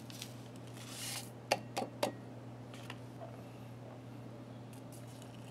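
Instant coffee granules tipped into an empty glass tumbler: a brief rustle, then three sharp clicks about a second into the pour, over a steady low hum.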